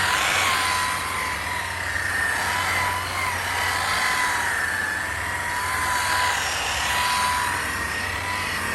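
Electric power tool running at speed with a steady high whine that wavers slightly in pitch, over a dense rough noise.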